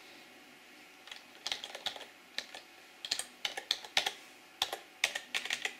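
Computer keyboard typing: a run of irregular key clicks that starts about a second in.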